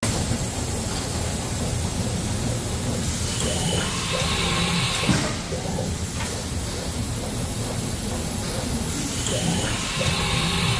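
Haas VF-12 CNC vertical machining center running, a steady hiss and hum of machine noise with a short knock about halfway through, after which the level dips slightly.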